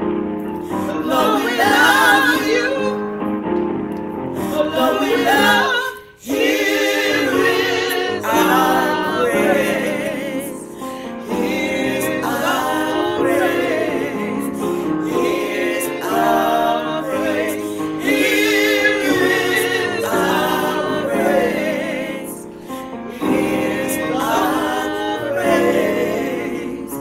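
Small group of women's voices singing a gospel song together in harmony, with a brief break about six seconds in.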